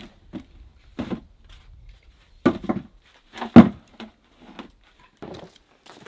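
Split firewood being stacked in a woodshed: irregular wooden knocks and thuds as pieces are set down on the pile, the loudest about three and a half seconds in, with footsteps on the plank floor between them.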